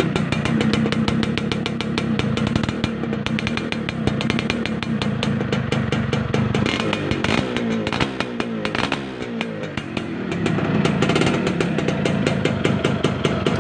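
Yamaha F1ZR's single-cylinder two-stroke engine running through its stock, not-yet-gutted exhaust muffler: a rapid two-stroke idle, revved up and down a few times about halfway through.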